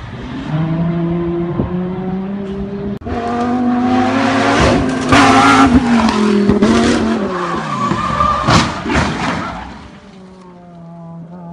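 A car engine revving hard, its note climbing, with tyres squealing in a skid and a few sharp knocks; near the end the engine note falls away.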